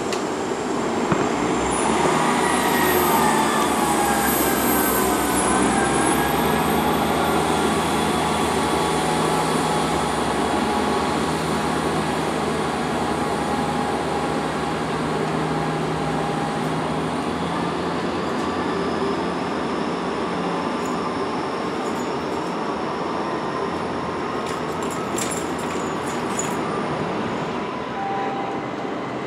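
Class 158 diesel multiple unit running slowly through a station platform, its under-floor diesel engines giving a steady drone. A high whine bends in pitch over the first few seconds.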